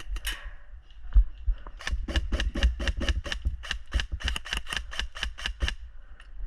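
Airsoft gun firing a quick string of sharp shots, about five a second, for nearly four seconds starting about two seconds in, after a single louder knock.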